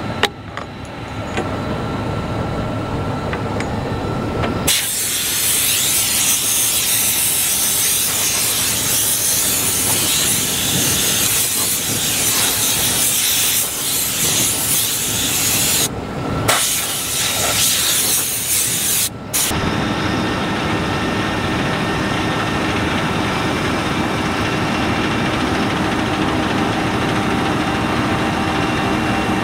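Desna-Polesye GS12 combine harvester running while harvesting wheat: a loud, steady machine noise of engine and threshing gear. From about five seconds in it is a strong rushing hiss; after a couple of abrupt changes, from about twenty seconds in it settles into a steady engine hum with several held tones.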